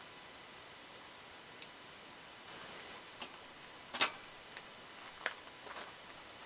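A few sharp, irregularly spaced clicks and light knocks over a steady faint hiss, the loudest click about four seconds in.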